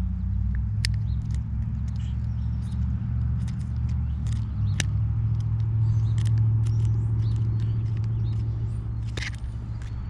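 A motor vehicle engine running steadily as a low hum, a little louder about six seconds in. Over it come scattered light clicks from the baitcasting reel's parts being worked by hand as the drag star is unscrewed.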